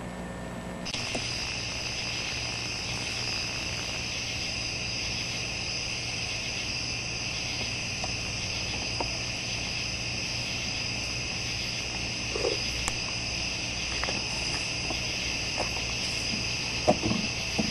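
Steady high trilling of a night insect chorus, starting about a second in, with a few soft knocks near the end.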